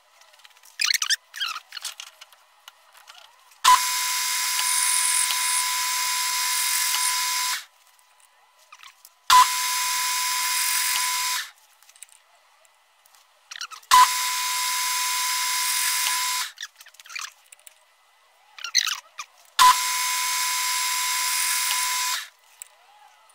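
Metal lathe motor switched on and off four times, each run a few seconds of steady high whine that starts with a sharp click, with brief handling sounds in the gaps between runs.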